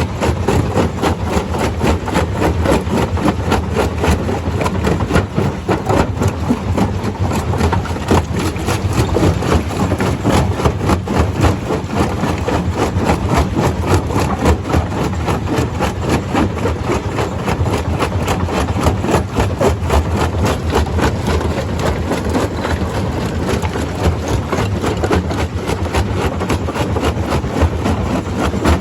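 Stone crusher running: a steady heavy drone under a dense, continuous clatter.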